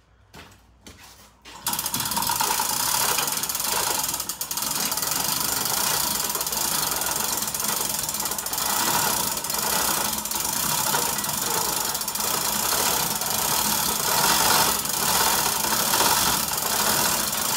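Chain hoist lifting an engine out of a lawn tractor: a steady ratcheting rattle of chain running through the hoist, starting about two seconds in and carrying on without a break.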